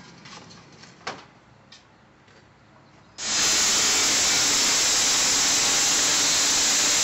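Handheld angle grinder cutting into steel sheet, a loud steady grinding hiss that starts abruptly about three seconds in. Before it there are only a couple of faint knocks.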